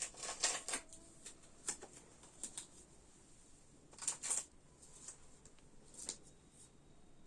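Scattered rustles and light clicks of handling and movement in a small room, with a longer rustle about four seconds in.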